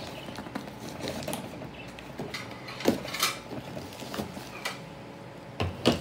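Scissors slitting packing tape on a cardboard box, then the cardboard flaps being pulled open, with scratching and rustling and a few sharp knocks, the loudest one near the end.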